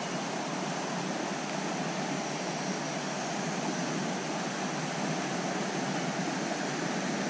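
Steady rush of flowing creek water, an even hiss with no breaks.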